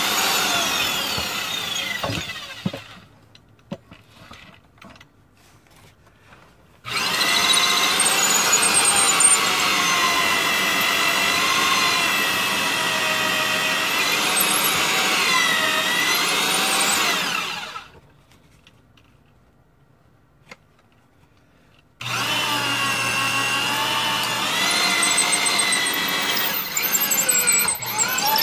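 Half-inch electric drill, not a hammer drill, boring into a concrete block foundation wall with a lengthened bit. It runs in three spells of several seconds with pauses between, and the motor's whine wavers in pitch as the bit loads up in the concrete.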